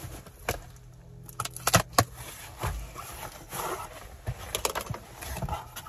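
Cardboard parcel box being opened by hand: scattered sharp clicks and scrapes as the flaps are pulled open, with rustling of the packaging.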